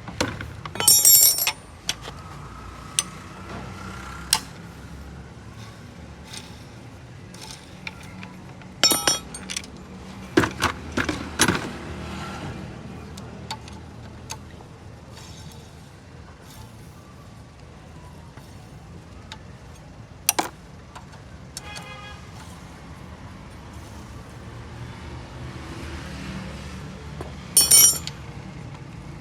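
Metal tools and engine parts clinking and clattering against each other during an engine teardown, in scattered sharp, ringing clanks with a busier cluster about ten to twelve seconds in, over a steady low rumble.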